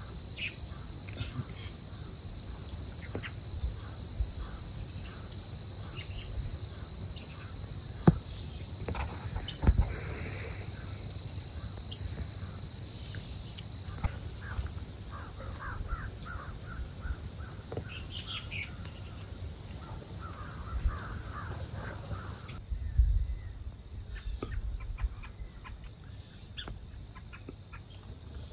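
Birds chirping and calling over a steady high-pitched whine; the whine cuts off about 23 seconds in, and scattered chirps go on after it.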